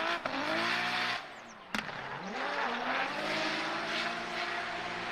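Race-car engine sound rising and falling in pitch several times over a steady hiss, with a sharp click a little under two seconds in.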